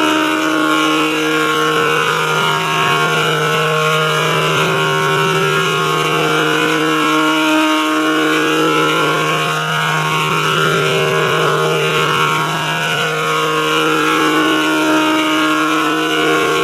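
Steady electronic drone of several held tones, a synthesized sound effect in G major, with its upper tones slowly wavering and shifting.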